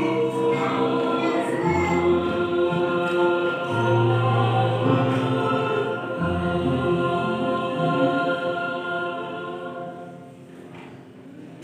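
Church choir singing a hymn in held chords, the sound dying away about ten seconds in as the song ends.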